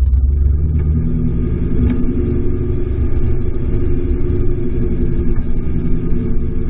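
Audi R8's V8 engine with an aftermarket exhaust, a steady low rumble as the car creeps along at low revs, heard through a camera mounted on the car's side.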